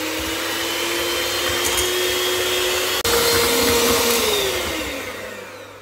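Mandine electric hand mixer running, its beaters whipping eggs and sugar in a glass bowl for a génoise sponge. The steady motor hum steps up in pitch about three seconds in, then falls away and fades as the mixer winds down near the end.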